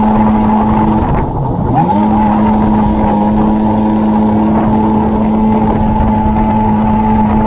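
Jet ski engine running at speed, with water rush and wind noise; the throttle is eased about a second in, the pitch dropping and then climbing back to a steady high drone.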